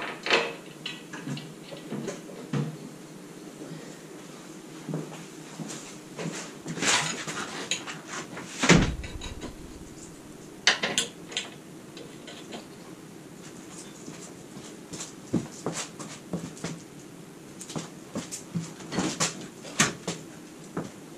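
Scattered knocks, clanks and rattles of tools and metal parts being handled, with one heavy thud about nine seconds in.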